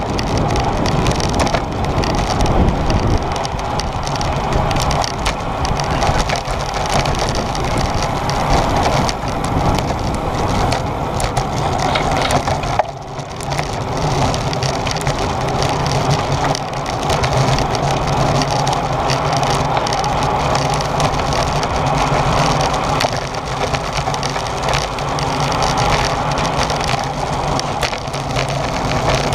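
Road bicycle riding at race speed, heard from an onboard camera: a loud, steady rush of wind over the microphone mixed with tyre and frame rattle, dipping briefly about halfway.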